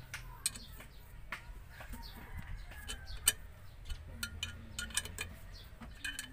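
Irregular small metal clicks and clinks as bolts are threaded by hand into the puller holes of a rear brake drum. Faint bird chirps sound behind.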